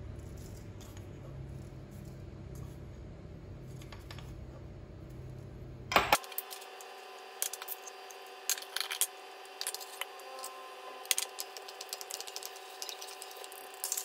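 A low steady hum, then from about six seconds in a run of scattered sharp clinks and taps: a wooden spoon knocking against a glass jar and a stainless steel mixing bowl as seasonings are spooned in.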